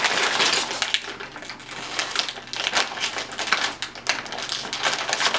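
A sweet potato chip bag crinkling and crackling as hands tug and pull at its sealed top, trying to tear it open.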